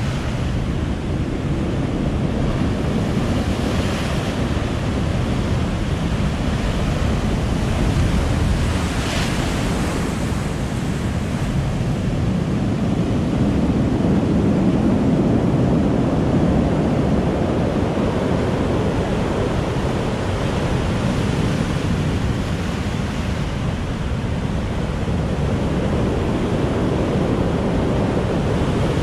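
Heavy storm surf breaking and rushing up over a cobble-and-rock beach, a continuous deep rushing with a brief brighter crash of spray twice early on and a swell of louder surge about halfway.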